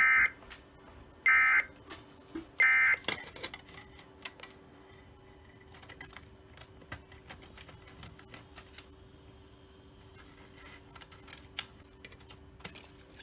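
NOAA Weather Radio sounding three short bursts of EAS digital data tones about a second and a half apart: the end-of-message signal closing a severe thunderstorm warning. Scattered faint clicks and taps follow.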